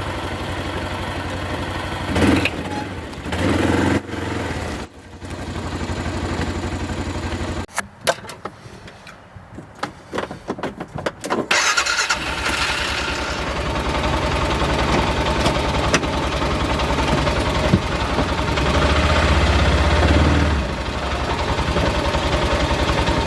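A vehicle engine running steadily. It drops away for a few seconds about a third of the way in, then runs again, louder.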